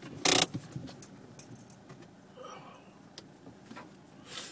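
A short, loud rustling scrape about a quarter of a second in, then a few light scattered clicks and knocks.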